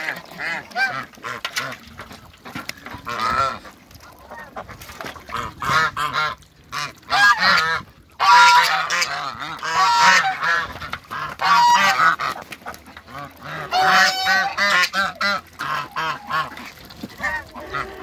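A flock of domestic geese honking, many calls overlapping one after another, loudest in a cluster around the middle and again a little later.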